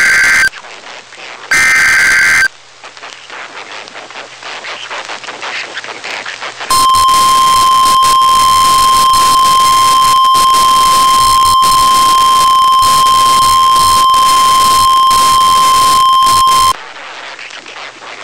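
NOAA Weather Radio Emergency Alert System broadcast: two short raspy bursts of the digital SAME header that encodes the tornado warning, then radio hiss, then the 1050 Hz warning alarm tone, one steady high tone for about ten seconds that cuts off suddenly. The tone signals that a warning message follows.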